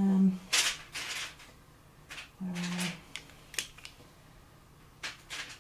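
Coloured pencils being handled and shifted against each other, rattling and clicking in several short bursts. Two brief low hums come at the start and about halfway through.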